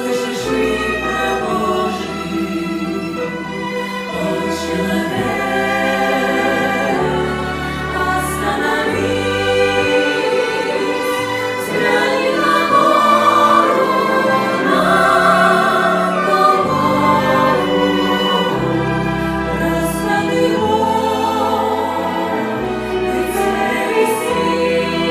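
Choral music: voices singing sustained, slow-moving chords over a steady bass line.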